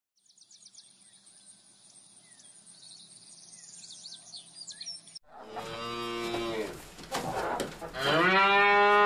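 Cows mooing: two long, low moos, the first about five and a half seconds in and a louder second one about eight seconds in. Before them there are a few seconds of faint, high ticking and chirping.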